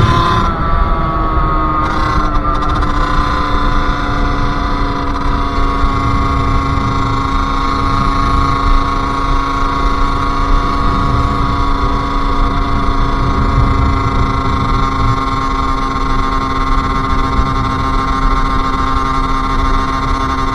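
Sherco SM-R 50's 50cc two-stroke engine: the revs fall during the first couple of seconds, then it runs at a steady, even pitch.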